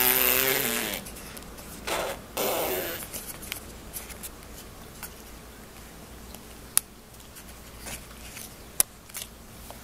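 A short vocal sound falling in pitch right at the start and two brief ones about two to three seconds in, then soft rustling from the camera being handled against fabric, with a few sharp clicks.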